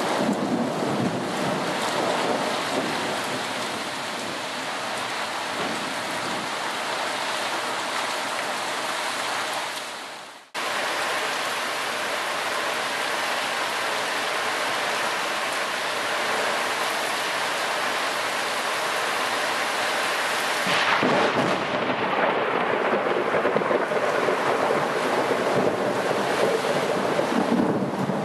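Thunderstorm: heavy rain pouring steadily with thunder rumbling, strongest in the first few seconds. The sound drops out briefly about ten seconds in, and from about twenty seconds in gusts of wind grow louder.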